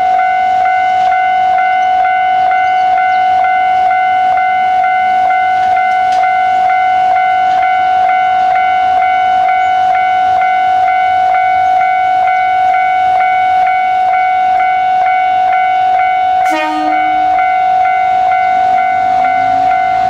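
Japanese level-crossing alarm ringing: a steady electronic bell tone pulsing in an even rhythm while the crossing lights flash. A short train horn toot sounds about three-quarters of the way through, and a low diesel engine rumble starts near the end.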